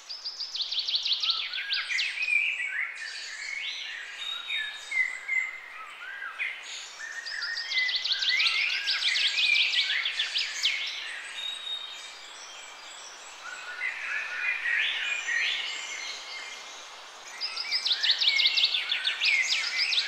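Several songbirds singing and calling over one another, with spells of rapid trills about a second in, around eight seconds in and again near the end, over a steady faint hiss.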